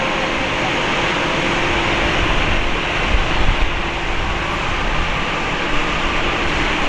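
Airbus A350-1000's Rolls-Royce Trent XWB-97 jet engines at low taxi thrust: a steady jet rush with a faint hum, and a brief low rumble about three seconds in.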